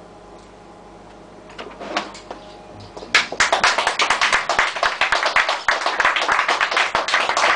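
Audience applause in a small club, starting suddenly about three seconds in as a dense patter of many hands and carrying on. Before it, a quiet close of the music with a few soft strikes.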